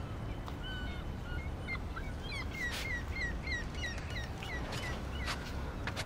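Birds chirping, many short repeated calls, over a steady low rumble of outdoor ambience.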